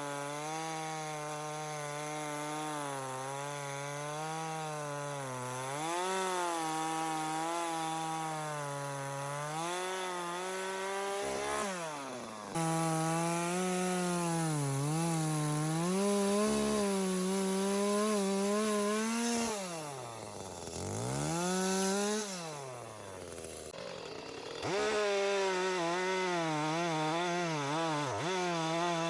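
Chainsaw cutting into a large camellia tree, its engine speed wavering up and down as the chain bites into the wood. A few times the engine drops off toward idle and revs back up.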